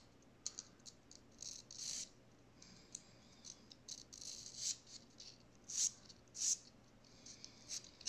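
A sanding stick (emery board) filing a tiny printed model part, smoothing off where it was cut from its sprue. A string of short, faint, irregular scratchy strokes.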